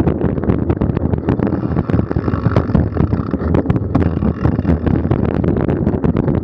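Wind buffeting the microphone of a camera riding on a mountain bike, with constant rattles and knocks from the bike and tyres bouncing over a bumpy dirt trail.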